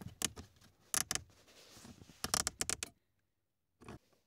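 Plastic lower dashboard panel under a Volvo 740/940's steering column being unclipped and pulled free: several quick clusters of clicks and knocks, a short pause, then one more knock near the end.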